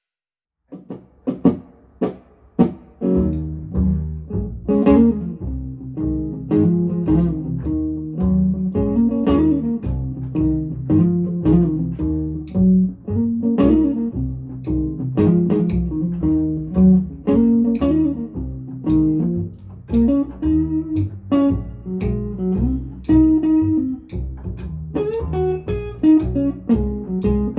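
Guitar music with bass. A few picked notes come in after a moment of silence, then fuller, steady playing from about three seconds in.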